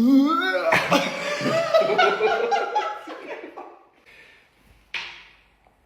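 People laughing, a voiced laugh that fades out after about three seconds, followed by a short breathy burst near the end.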